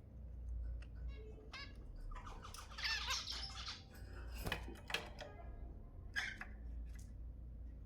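Zebra finches calling and singing: short call notes, with a busier song phrase a couple of seconds in and a few sharp clicks soon after, over a low steady hum.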